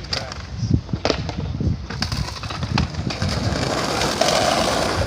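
Skateboard sounds: a few sharp knocks and clatters from the board, then the wheels rolling on concrete, growing louder about three seconds in.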